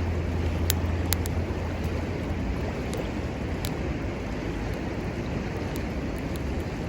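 Steady rush of river water, with a few sharp faint clicks scattered through it. A low hum underneath fades out about a second and a half in.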